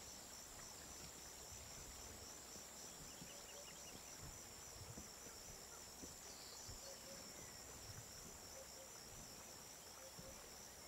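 Faint, steady high-pitched chirring of insects, with a fine pulsing texture and no break.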